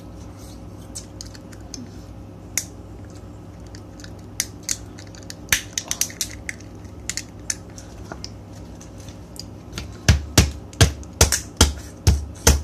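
Crab shells being cracked and picked apart by hand: a run of sharp snaps and clicks, with heavier knocks near the end.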